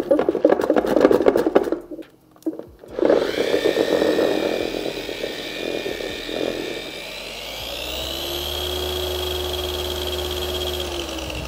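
DIY Detail 25 mm-throw dual-action polisher running with its pad pressed into a pad-cleaning bucket, with a rough scrubbing noise. About eight seconds in its motor whine climbs to a higher steady pitch at speed setting 6, and it spins down just before the end.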